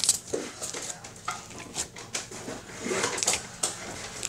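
A hand working pre-made slime in its plastic jar: irregular squishes and small clicks and knocks.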